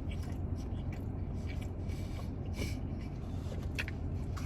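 A person chewing a mouthful of mac and cheese, with small irregular mouth sounds over a steady low rumble.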